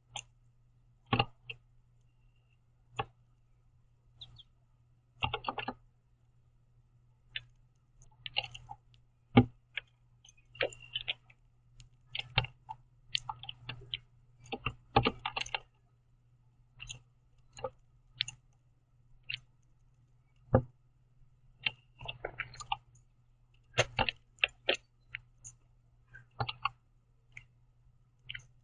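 Red-winged blackbird's beak pecking and cracking sunflower seeds on a wooden platform feeder: irregular sharp clicks and taps, sometimes in quick clusters, over a faint steady low hum.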